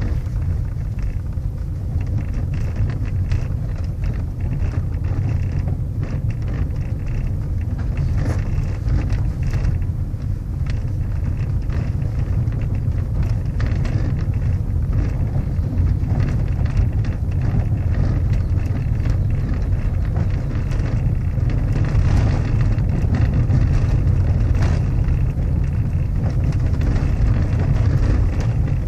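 Inside a moving 2012 Toyota Prius: a steady low road rumble, with a light, irregular clicking rattle from the middle of the dashboard, its cause unknown.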